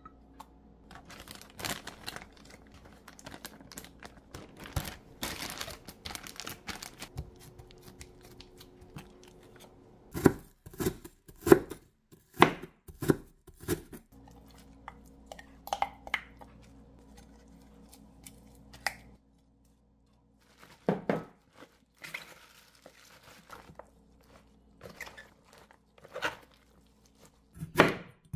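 Wooden spoon stirring and scraping minced garlic into red chilli seasoning in a glass measuring jug, then a kitchen knife chopping on a wooden cutting board in a run of sharp knocks, shredding green onion and near the end slicing a zucchini.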